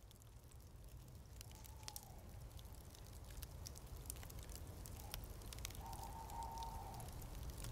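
Faint ocean surf breaking on a sandy beach: a low rumble that slowly grows louder, with scattered light crackles.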